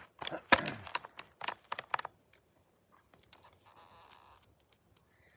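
Handling noises: a quick run of scrapes, knocks and clicks over the first two seconds, then a few scattered light clicks.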